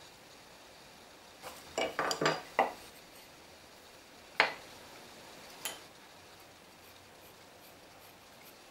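Short clinks and knocks of a small try square and wood being handled and set down on a wooden workbench. A quick cluster of four or five comes about two seconds in, then one sharp knock, the loudest, and a lighter one a second later.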